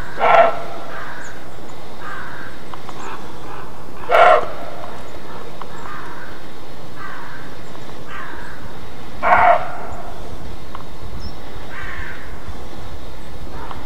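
Roe deer barking: three short, loud alarm barks (the call hunters name 'Schrecken') about four to five seconds apart, with fainter barks in between.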